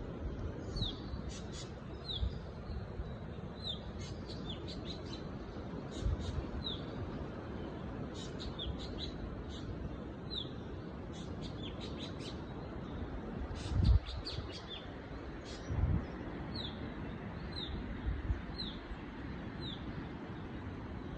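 Forest birds calling: short high whistled notes that slide downward, repeated every second or so, mixed with quick bursts of higher chirps over a steady background hiss. A few low thumps break in, the loudest about two thirds of the way through.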